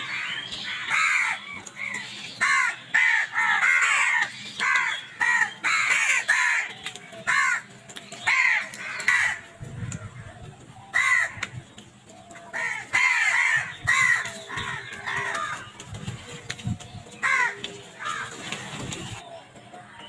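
A flock of house crows cawing, many short harsh calls overlapping in dense runs. There is a brief lull about halfway through, and the calls thin out near the end.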